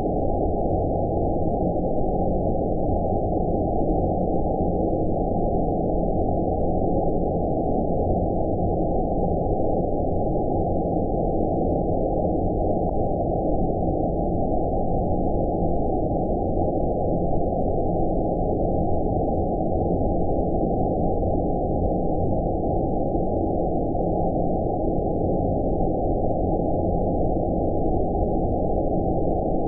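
Steady, unchanging 'space noise' sleep sound: a deep, muffled rushing hiss with all the treble removed, so nothing sounds above a low, dark rumble.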